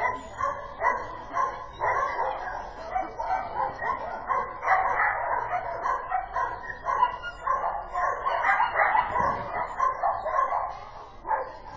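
A dog barking over and over, several barks a second, fading off near the end.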